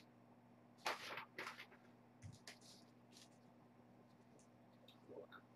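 A few short bursts of rustling and crinkling as a mail package and its paper contents are handled, with quiet room tone between.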